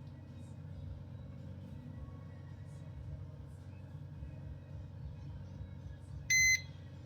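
OXO digital kitchen timer sounding its alarm: one short, high-pitched electronic beep near the end, the first of a beep repeated about once a second. It comes over a faint, steady low rumble.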